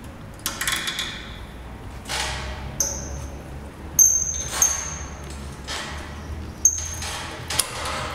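Sharp metallic clinks and knocks from hands handling parts of a bare 1.6 HDi diesel engine that is not running. There are about seven hits, several of them ringing briefly, and the loudest comes about four seconds in.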